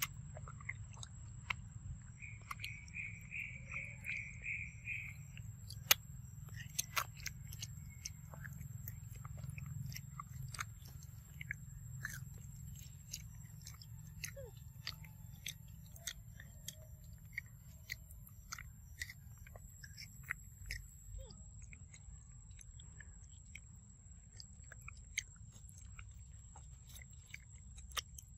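A macaque chewing soft, fibrous fruit close to the microphone: irregular wet smacks and small crunching clicks. Behind it runs a steady, thin, high insect whine, and about two seconds in comes a short run of seven quick chirps.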